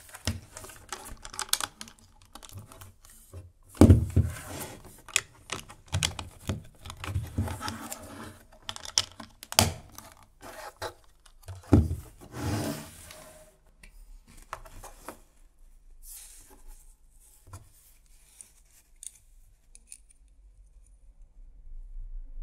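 Plastic LEGO bricks and Technic parts clicking, rattling and rubbing as they are handled and pressed together by hand, with two heavier knocks on the tabletop about four and twelve seconds in. The handling grows quieter and sparser over the last several seconds.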